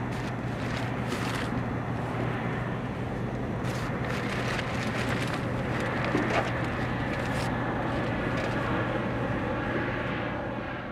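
A steady engine-like drone with a constant low hum and a few faint clicks, fading near the end.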